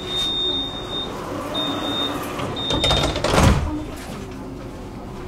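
Tram door-closing warning: a high steady beep sounding three times, each shorter than the last, then the sliding doors shutting with a loud thump about three and a half seconds in.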